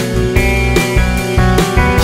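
Background music with guitar over a steady beat.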